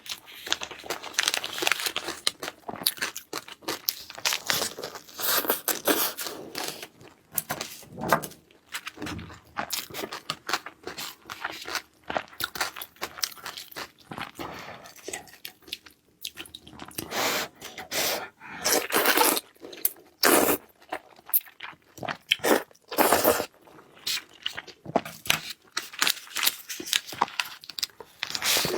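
A person chewing and crunching food in a rapid, irregular run of crackly bites, with a short lull about halfway through.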